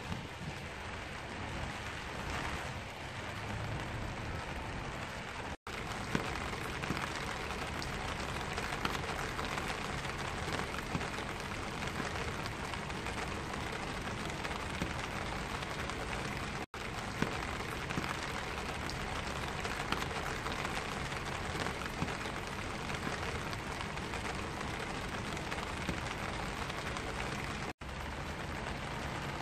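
Steady rain falling on a black vinyl umbrella canopy, with individual drops ticking against it. The sound cuts out for an instant three times.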